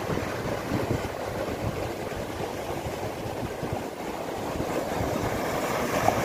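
Surf washing and breaking on the rocky shoreline, with wind buffeting the microphone. It grows a little louder and hissier near the end as a wave breaks on the rocks.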